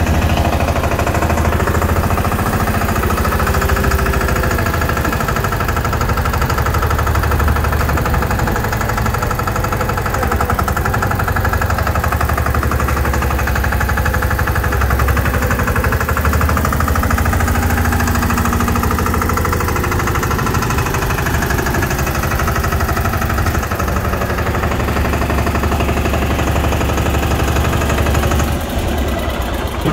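Massey Ferguson 5118 mini tractor's single-cylinder 825 cc diesel engine running steadily as the tractor is driven, a fast even knocking beat. The sound falls away near the end.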